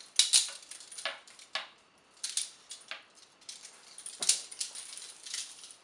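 A steel chain with handcuffs and leg irons attached, clinking and jangling as it is handled: a string of irregular sharp metal clinks, the loudest near the start and about four seconds in.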